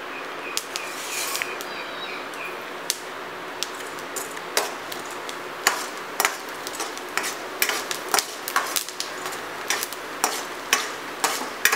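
Cumin, fennel seeds and black peppercorns frying in hot oil in a stainless steel kadai: a steady sizzle with sharp pops and crackles from the spices, coming more often after the first few seconds. This is the spluttering stage of the tempering, before the shallots go in.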